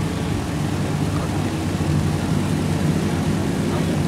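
A JR West KiHa 58 diesel railcar's DMH17H diesel engine runs steadily as the train travels, a low, even hum over running noise.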